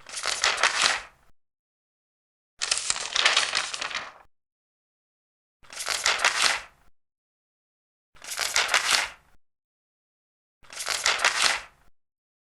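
Large paper pages being turned, five times: each turn is a crisp rustle lasting about a second, with silence between, one about every two and a half seconds.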